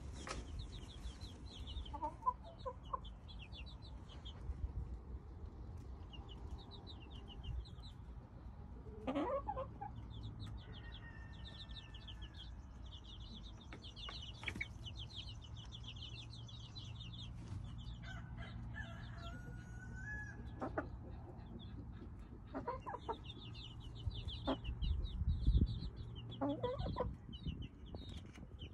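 A mother hen clucking in a few short bursts, over almost constant high, quick peeping from her half-grown chicks.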